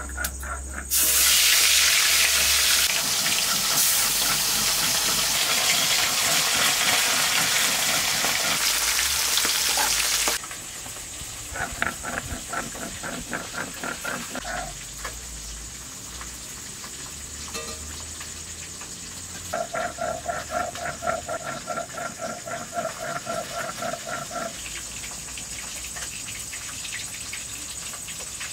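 Food frying in hot oil in a kadai: a loud, steady sizzle that cuts off suddenly about ten seconds in. After it, a rhythmic pulsing chirp comes in two stretches of a few seconds each.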